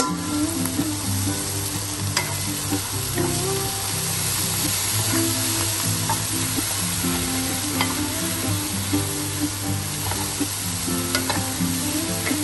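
Beef, cauliflower and greens sizzling in hot oil in a wok as they are stir-fried, with scattered clicks of the wooden spatula against the pan. Background music plays underneath.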